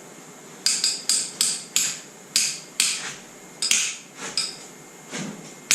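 Metal hand tools clinking: a quick run of about nine sharp metallic taps with short ringing tails, a few fainter ones, and one more loud clink at the end.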